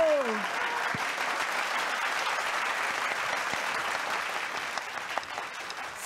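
Applause from a studio audience and judges, steady and easing slightly near the end. A pitched note slides down and cuts off at the very start.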